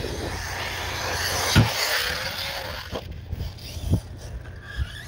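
Arrma Outcast RC truck, running a Surpass Hobby 4076 2000 Kv brushless motor on 6S, driving over grass and dirt with a faint motor whine. A sharp knock comes about a second and a half in, the loudest sound, with another near four seconds. A rising whine follows near the end.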